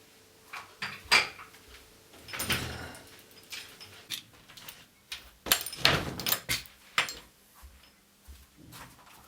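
Irregular knocks and clicks with short scraping or rustling rushes: a few sharp knocks about a second in, a longer rush around two and a half seconds, and a loud cluster of knocks and scraping near six seconds.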